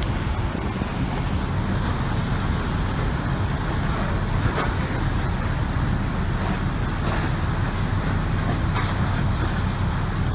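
Strong wind buffeting the microphone: a steady low rumble with hiss above it.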